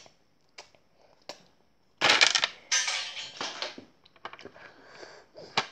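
Handling noise from a toy figure worked right next to the microphone: a few light clicks, then about two seconds of loud scraping and crackling, then more small clicks and taps.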